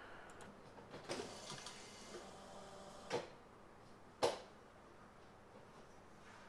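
Quiet with faint handling noise, then two short sharp clicks about three and four seconds in, the second louder.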